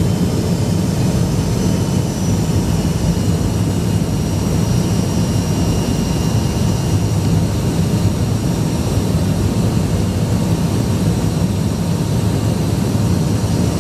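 Steady cabin noise of a jet airliner on approach: engine and airflow roar with a strong low hum and a faint high whine that dies away partway through.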